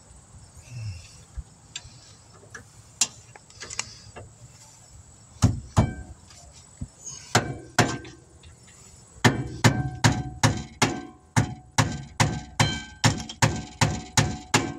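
Hammer blows on steel brake parts, a few scattered strikes and then a fast, steady run of about three a second, each with a short metallic ring, while freeing a brake caliper slide pin that is stuck with rust and no grease.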